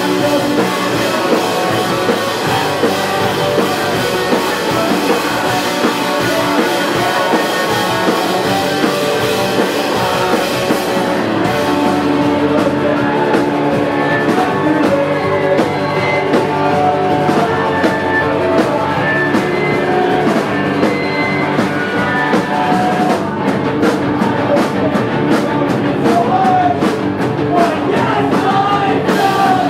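Rock band playing live and loud: electric guitar, electric bass and drum kit, with singing. The cymbal wash thins out about a third of the way in, and sharp, evenly spaced hits come in about two-thirds of the way through.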